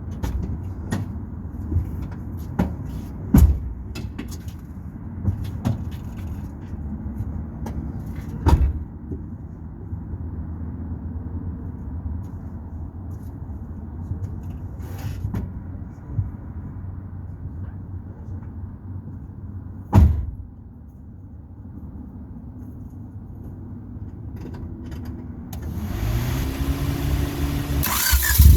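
Turbocharged Honda Civic D16Z6 engine running at light load while driving, with a few sharp thumps. Near the end the engine revs up, rising in pitch, with a hiss building over it.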